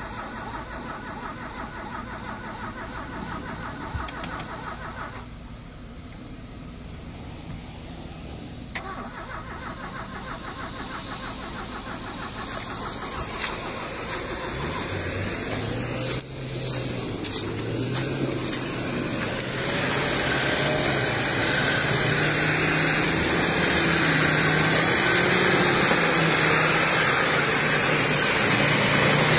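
A Land Rover Defender's engine coming closer through deep mud, getting steadily louder over the second half and revving up and down in pitch, after a first half where an engine is heard only faintly. In the last seconds the engine is joined by the rush of mud and water thrown off the wheels.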